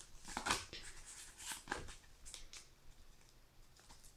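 Faint, scattered rustling and light taps of a foil Pokémon booster pack and its cards being handled, a few small crinkles a second.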